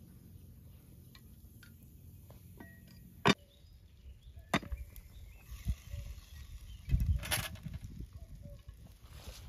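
A few sharp clicks and knocks of metal skewers and cookware being handled at a charcoal grill, the loudest a little over three seconds in and another about a second later, with a scuffling clatter around seven seconds.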